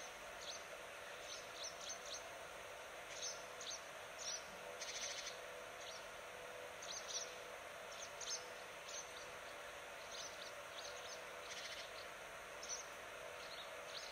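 Birds chirping: short, high calls in scattered bursts, with a couple of brief rapid trills, over a faint steady hum.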